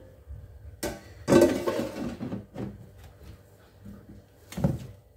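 An air fryer basket being handled and slid into the air fryer body: clattering knocks and clunks, the loudest about a second and a half in and another near the end.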